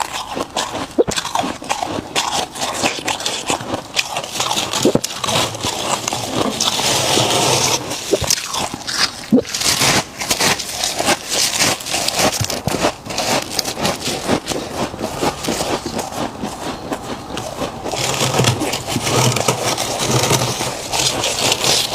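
Freezer frost being bitten and chewed close to the microphone: dense, irregular crunching and crackling throughout, heavier in a couple of stretches.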